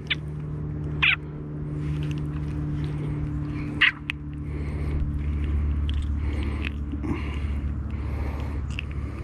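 Steady low mechanical hum with a low rumble that builds about halfway through, and two short high chirps, about a second in and near four seconds.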